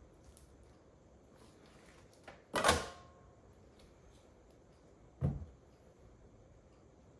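Clunks from working a metal multi-bar soap cutter through a loaf of cold-process soap: a loud clunk with a short metallic ring about two and a half seconds in, and a duller, lower thump about five seconds in.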